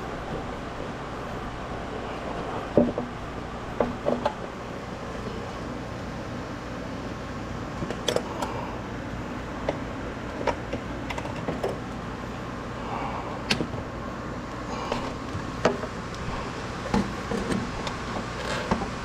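Irregular clicks, knocks and clinks of hand tools and engine parts being handled, over a steady background hum.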